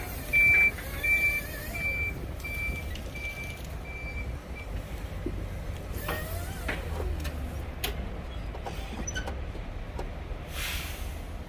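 A high electronic beep repeating about twice a second, about nine beeps in all, loudest at first and fading away. Afterwards come a few scattered clicks and knocks over a steady low rumble.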